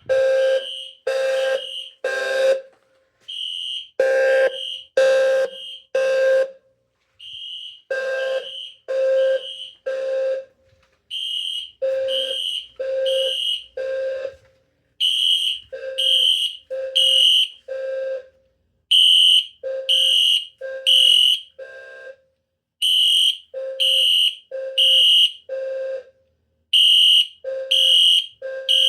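Two fire alarm sounders going off together in the code 3 temporal pattern, three pulses about a second apart, then a pause, over and over: a Wheelock LED-series low frequency sounder giving a low, buzzy 520 Hz tone and a Wheelock Exceder horn strobe giving a louder, high-pitched horn blast. The two units are not synchronised, so their pulses overlap and drift against each other.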